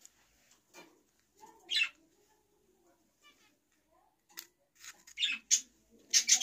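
A small paper card and cord being handled: several short rustling, scraping noises. One comes about two seconds in, and a quick cluster comes near the end.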